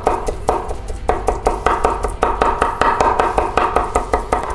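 Chef's knife chopping diced raw salmon on a wooden cutting board, mincing it fine. The blade strikes the board in a fast, even run of about five strokes a second, with a brief pause about half a second in.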